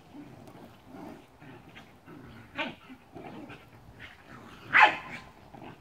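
Cardigan Welsh Corgis play-fighting, with low vocalising and two sharp barks, the second and louder one near the end.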